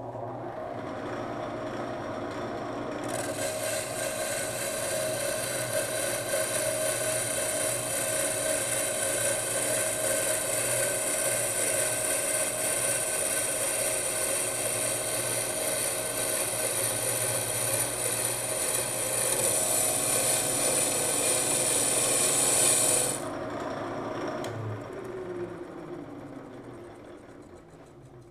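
Shop-built wood lathe spinning a banjo rim blank with a steady motor hum. About three seconds in, the cutting tool bites and a hissing scrape of wood being turned away runs for about twenty seconds, then stops suddenly. The lathe then winds down, its hum falling in pitch and fading.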